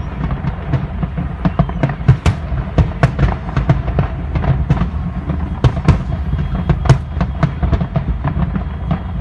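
Fireworks bursting and crackling in quick succession, several sharp bangs a second over a continuous deep rumble.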